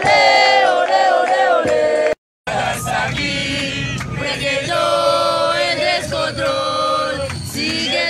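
A crowd of football supporters singing a chant together, many male voices in unison. It cuts out abruptly for a moment about two seconds in, then the singing resumes.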